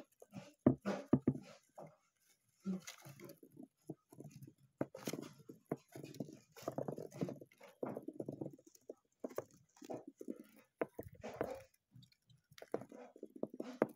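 Hamster moving about on the hard plastic floor of a playpen: irregular patters, scratches and small clicks that stop and start.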